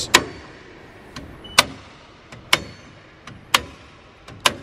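Circuit breakers in a 48-volt DC distribution box being switched on one after another to power up the system: five sharp snaps about a second apart, several with a fainter click just before.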